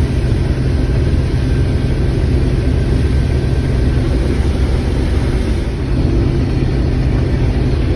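Combine harvester running steadily while cutting soybeans, a loud, even engine and machinery drone.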